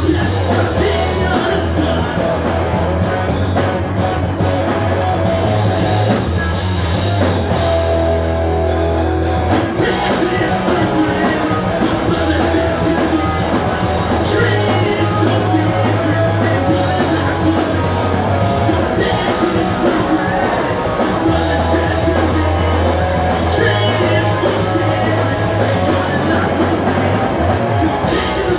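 A punk rock band playing live: electric guitars, bass and drums with a lead singer. It is loud and continuous, and the bass drops back briefly twice.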